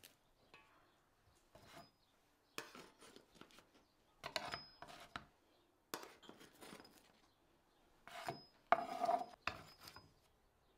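Handling of freshly baked rolls, a metal baking pan and a wooden serving board: several short bursts of knocking and scraping on wood and metal, loudest about halfway through and again near the end.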